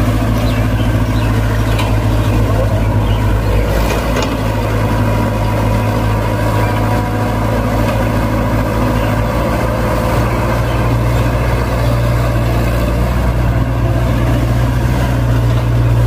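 Diesel engines of two Kobelco hydraulic excavators running steadily under load as they dig pond mud, with an even low hum throughout.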